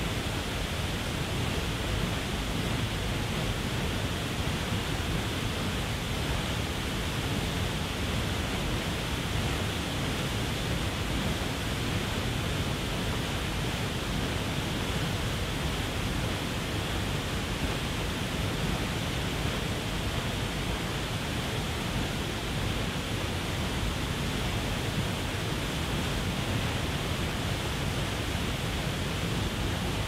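Waterfall: water pouring over a rock ledge, a steady, unbroken rush that does not change.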